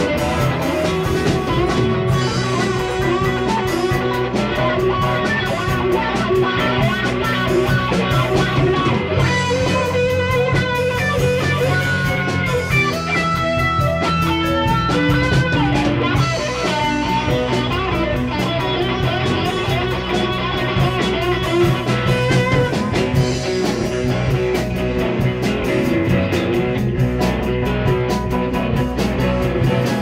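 Live band playing an instrumental passage on electric guitar, electric bass, keyboard and drums.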